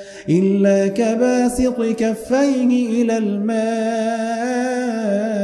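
A solo male voice reciting the Quran in Arabic in a melodic chant. After a brief pause at the start it draws out long held notes with wavering ornaments.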